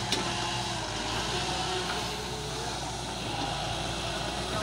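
Volvo EW145B wheeled excavator's diesel engine running steadily under hydraulic load as the boom swings back from the trolley, with a single short knock just after the start.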